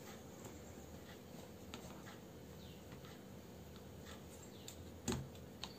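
Faint plastic handling clicks as a phone is fitted into a tripod's phone holder clamp, over quiet room tone, with a sharper click or knock about five seconds in as it seats.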